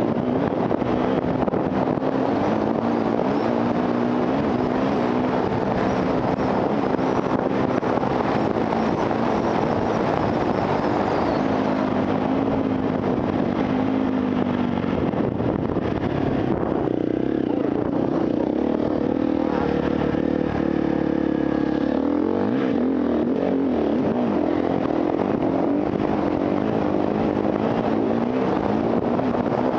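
Enduro motorcycle engine running hard off-road, its pitch rising and falling as the throttle is worked. Between about 17 and 22 seconds it drops to a lower, steadier note before picking up again.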